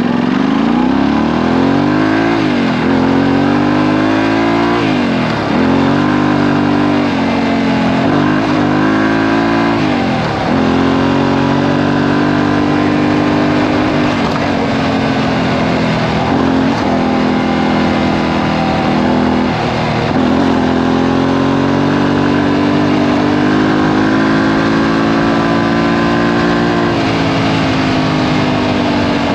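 Yamaha Tenere 700's parallel-twin engine through a Camel ADV exhaust with the dB killer removed, accelerating hard: the pitch climbs and drops back with several upshifts in the first ten seconds, then holds fairly steady at cruising speed with small dips from throttle changes.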